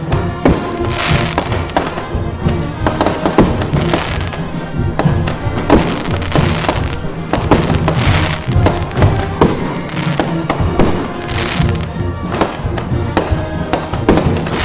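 Festival music playing loudly, with many sharp cracks going off over it throughout.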